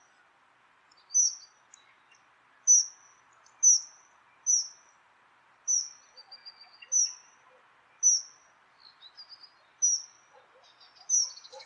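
Dunnock giving short, thin, high call notes, each falling slightly in pitch, repeated about once a second with a few fainter chirps between, over a faint steady background hiss.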